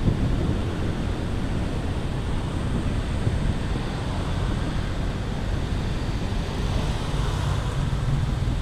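Steady low rumble of wind buffeting a GoPro Hero5 action camera's microphone on a moving bicycle, with road noise blended in.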